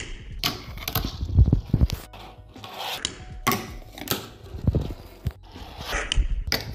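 A fingerboard doing tricks on a wooden table: repeated sharp clacks and knocks of the board popping and landing, between wheels rolling and the board scraping along a small ledge.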